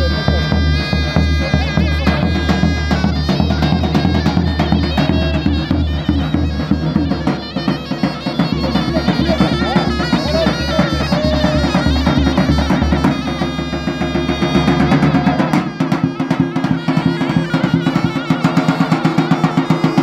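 Traditional folk music on a davul, the large double-headed bass drum struck with a heavy mallet and a thin stick, under a loud reedy wind instrument playing the melody. The deep drum beats thin out about three quarters of the way through, and quick sharp stick strokes come near the end.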